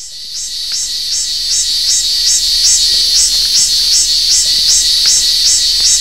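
A cicada calling: a loud pulsing song at about three pulses a second, each pulse sweeping upward in pitch over a steady high buzz. It swells in over the first second.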